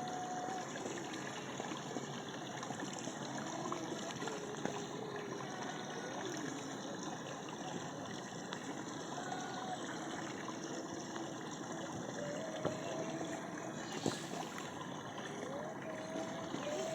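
Steady rushing noise like running water, with faint short pitched calls now and then.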